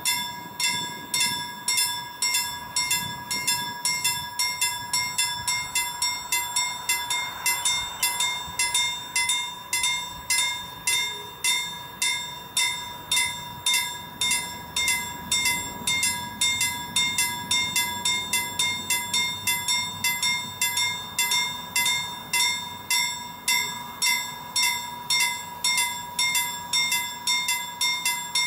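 Level-crossing warning bell ringing in a steady, even rhythm of about two strikes a second, warning that a train is approaching.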